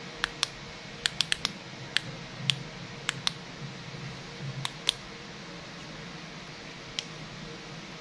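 Tail-cap push-button switch of an aluminium zoomable LED flashlight clicking about a dozen times: a quick run of clicks about a second in, then more spaced out, the last a second before the end. The switch is being pressed to cycle the light between off, on and its flashing modes.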